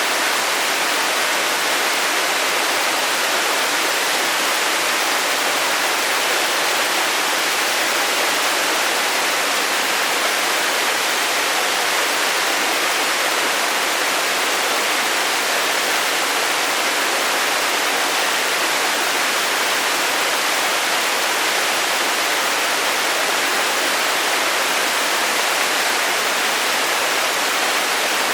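Waterfall rushing steadily: an even, unbroken hiss of falling water with little low rumble.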